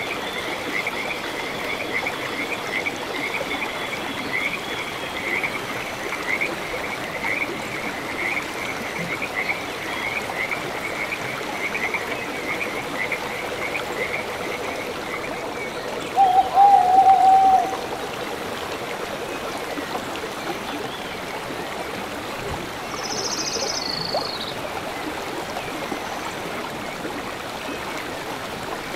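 Mountain river rushing steadily over rocks, with a high call from a small animal repeated about twice a second for roughly the first half. Near the middle a louder, lower wavering call lasts under two seconds, and later a short high call falls in pitch.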